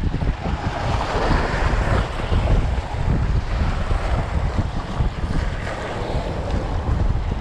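Wind buffeting the microphone in a steady low rumble, with waves washing against shoreline rocks.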